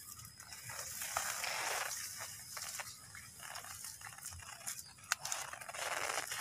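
Woven plastic sack rustling and scraping in several short irregular bursts as it is stitched shut with twine, with a sharp click about five seconds in.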